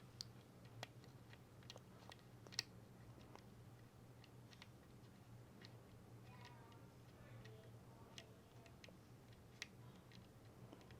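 Faint, sparse clicks of magnet building pieces snapping together and being set down, a few louder clicks standing out, over a low steady hum.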